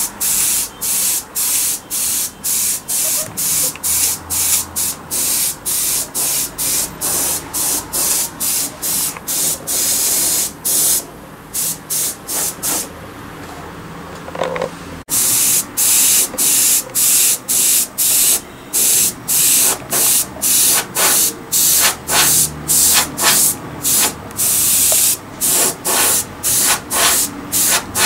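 Airbrush spraying black paint in short hissing bursts, about two a second, as the trigger is pressed and released to shape flame outlines. The bursts fall away briefly near the middle, then resume.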